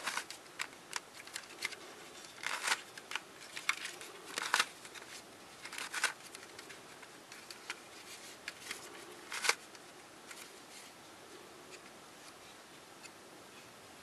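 Plastic clicks and short scrapes of an mf8 Starminx twisty puzzle being turned in the hands, irregularly spaced and stopping after about nine and a half seconds.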